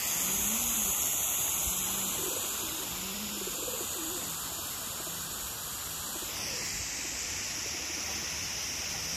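Water from a hose spraying down on a pigeon loft, making a steady hiss that shifts in tone about six seconds in. Under it, pigeons coo several times, most clearly in the first few seconds.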